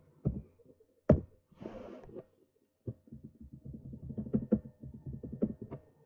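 Computer keyboard keys clicking in quick runs, with one sharper, louder key press about a second in as the login password is entered. A short hiss follows the loud press, and a faint steady hum lies underneath.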